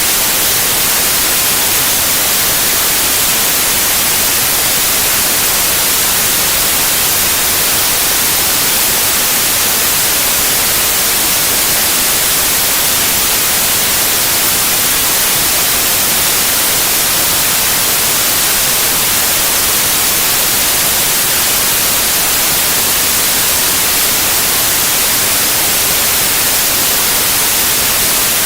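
Steady synthetic white noise: an even, unbroken hiss with no changes.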